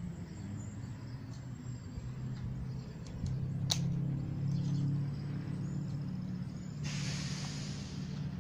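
Low, steady engine-like hum, with one sharp click a little over a third of the way in and a short burst of hiss near the end.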